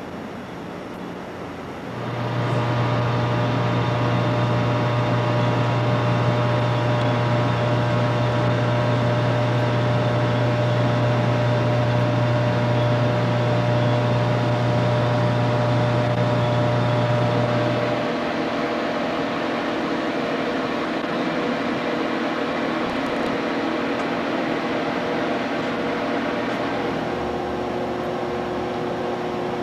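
Steady electrical machinery hum from radar equipment, with a strong low hum and several steady whining tones above it. The low hum sets in about two seconds in and cuts off a little past halfway, leaving a lighter steady hum.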